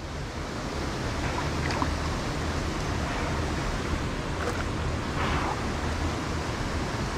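Steady rushing wash of water in a shallow creek, with no clear separate splashes.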